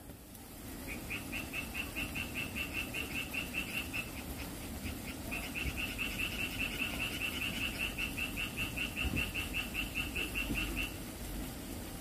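An animal calling with rapid, evenly pulsed, high chirps, about six a second. It sings in two long runs with a brief break between them.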